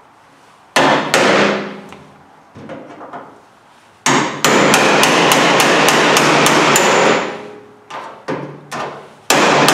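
Ball-peen hammer striking a cold chisel held against a security screw head on a microwave oven's sheet-steel cabinet, to shear the screw off. Two blows about a second in, then a quick run of about ten blows, some four a second, from about four seconds in, with the cabinet ringing between them. A few lighter taps and one more hard blow come near the end.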